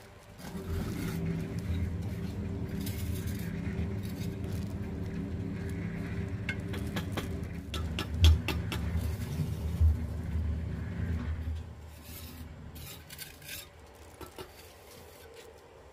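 An engine starts up and runs steadily for about eleven seconds, with a few sharp knocks partway through, then dies away.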